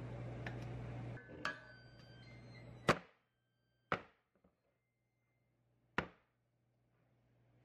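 Metal sheet pan full of cake-roll batter rapped down on a countertop, four sharp knocks a second or more apart, the second the loudest, with a brief metallic ring after the first: tapping the pan to knock air bubbles out of the batter.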